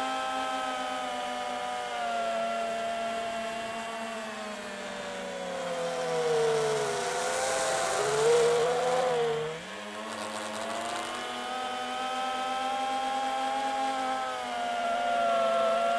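FPV quadcopter's electric motors and propellers whining, the pitch rising and falling with throttle. About halfway through the whine sags lower as a rush of air swells, then it cuts in sharply and climbs back to a higher pitch.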